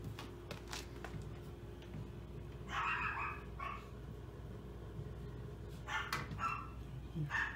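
Newborn Maltese puppy crying in short, high squeaks: one longer cry about three seconds in, then several shorter ones near the end.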